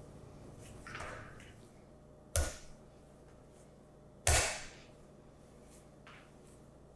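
A ball of flour tortilla dough slapped down onto a granite board twice, about two seconds apart, between softer sounds of the dough being kneaded.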